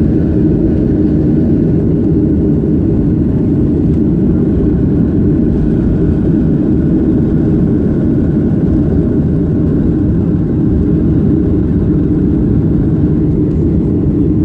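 Cabin noise of a Boeing 737-800 on its takeoff roll: its CFM56 jet engines at takeoff power and the wheels on the runway, heard as a loud, steady, low-pitched noise.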